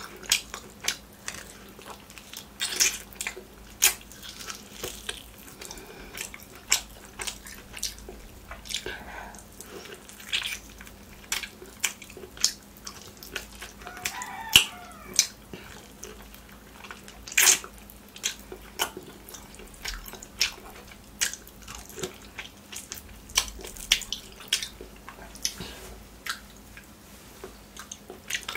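Close-miked wet mouth sounds of eating mutton curry and bone meat by hand: irregular chewing, lip-smacking and sharp wet clicks, with a slurp as meat is sucked off a mutton bone about halfway through.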